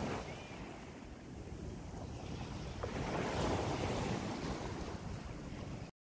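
Lake Michigan waves washing ashore, a steady surf that swells about halfway through, with wind rumbling on the microphone. It cuts off abruptly near the end.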